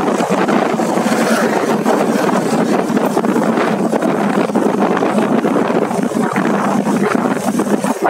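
Steady rush of wind buffeting the microphone on a moving motorcycle, mixed with engine and road noise.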